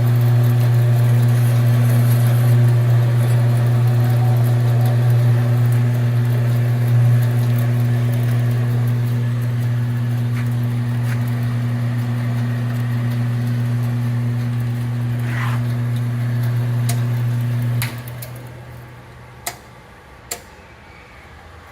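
Jet bandsaw's electric motor running with a steady hum. About 18 seconds in it is switched off and winds down, and two sharp clicks follow.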